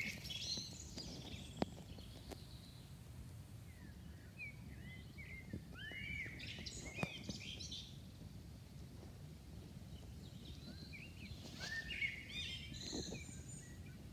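Songbirds singing in three short bouts of warbling, chirping phrases, near the start, around the middle and near the end, over a faint steady low outdoor rumble.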